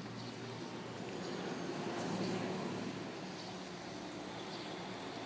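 Fire pump truck's engine running steadily, swelling slightly about two seconds in and then holding.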